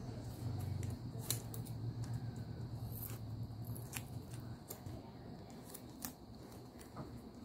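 Washi tape being handled: a few scattered sharp clicks and snaps as the tape is pulled off its roll and torn into a strip by hand. A steady low hum sits underneath and fades out about halfway through.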